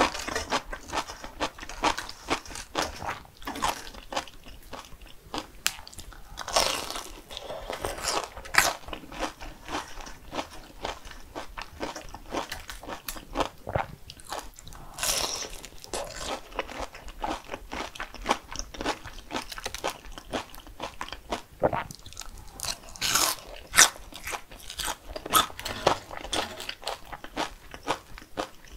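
Close-miked eating: repeated crunchy bites and chewing, full of sharp crackles, with a few louder, longer bites scattered through.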